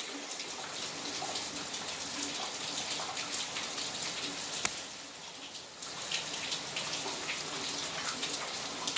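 Steady hiss of falling water with scattered drips ticking, easing briefly about five seconds in.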